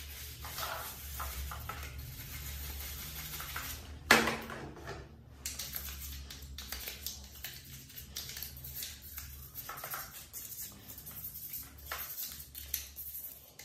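A plastic computer case fan being scrubbed with a brush and then a toothbrush in soapy water: repeated scratchy bristle strokes and sloshing water over a steady low hum. About four seconds in, a sharp knock rings briefly.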